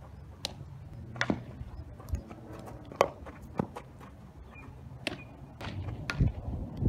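Sharp knocks and pops of a softball fielding drill: balls being hit, fielded into a leather glove and thrown, about ten short smacks spread over the seconds, the loudest about three seconds in.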